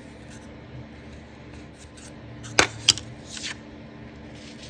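Two sharp clicks about a third of a second apart, a little past halfway, then a brief papery rustle, from hands handling a craft tag and paper pieces on a tabletop. A faint steady hum runs underneath.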